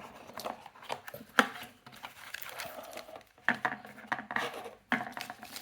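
A product package being handled and opened by hand: light rustling and scraping, with three sharp knocks or clicks spread through.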